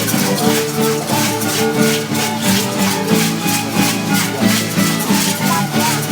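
Live music for a traditional dance: string instruments playing a melody with held notes over a steady shaken-rattle beat, about four strokes a second.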